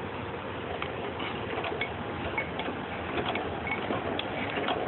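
Hand-cranked flywheel prosciutto slicer being turned by its handle. The mechanism gives off irregular clicks and ticks as the blade turns and the carriage moves, with a few short high chirps.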